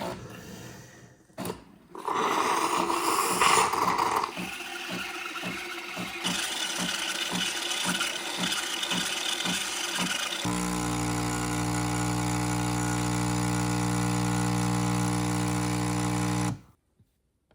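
Espresso machine making a latte macchiato: a loud mechanical run, then pulsing about twice a second, then a steady hum for about six seconds that cuts off suddenly near the end.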